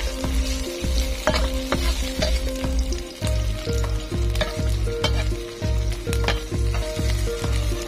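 Cubes of vegetarian mock fish sizzling in hot oil in a non-stick pan, with a spatula scraping and turning them now and then. Background music with a regular low beat plays underneath.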